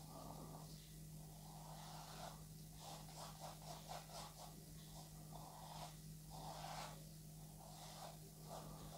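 Very faint soft brushing of a paintbrush blending oil paint on canvas, with a quick run of short strokes about three seconds in, over a steady low hum.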